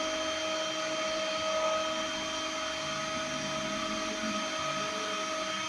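CNC machine milling a printed circuit board: the spindle runs with a steady high whine over a constant hiss.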